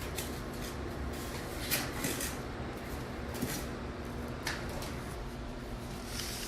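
Scattered clicks and light knocks, like handling of plastic parts, over a steady low hum.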